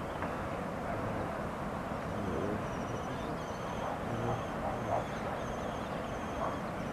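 Outdoor city ambience with wind on the microphone: a steady rushing noise with faint far-off voices, and a small bird chirping high and repeatedly, about two chirps a second, from about two seconds in until near the end.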